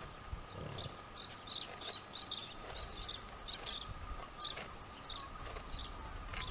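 Dromedary camels chewing the cud, a faint low grinding of jaws, under repeated short high chirps of small birds and a faint steady hum.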